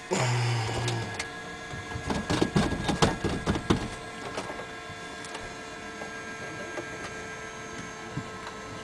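Clicks and knocks of hands working switches and fittings in a small plane's cabin, over a faint steady hum. A low buzz lasts about a second at the start, and the clicking is thickest in the middle.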